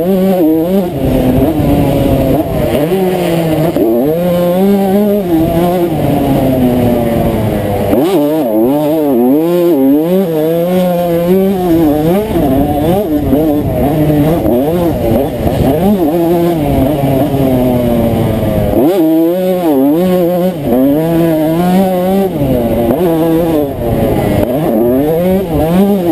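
A 1992 Honda CR125's single-cylinder two-stroke engine, heard from on the bike, revving up and falling back again and again as the rider accelerates, shifts and backs off around the track. The engine drops back sharply twice, once about eight seconds in and again near nineteen seconds, before it climbs again.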